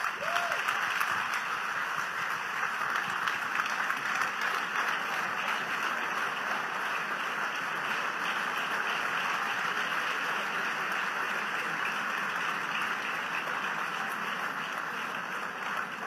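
Large audience applauding steadily, starting suddenly and easing off slightly near the end.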